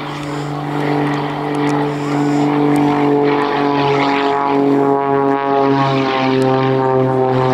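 Pitts Special aerobatic biplane's piston engine and propeller running at high power during a climbing aerobatic display, a steady buzzing note whose pitch slides down a little in the middle and wavers as the aircraft manoeuvres.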